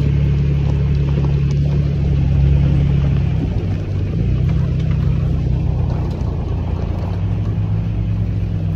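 Pickup truck driving on a dirt trail: a steady engine note with tyre and road noise. The engine note shifts about three and a half seconds in.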